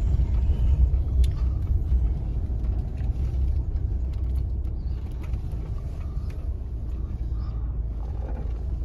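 Steady low rumble of a car driving, heard from inside the car, slowly getting quieter.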